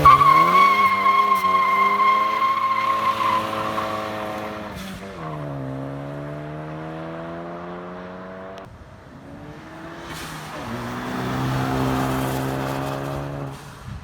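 Ford Focus ST's turbocharged four-cylinder, with the resonator deleted from an otherwise stock exhaust, pulling hard from a launch while the tyres squeal for the first few seconds. The engine note climbs, drops at an upshift about five seconds in and climbs again; after a brief lull the car is heard again under power near the end.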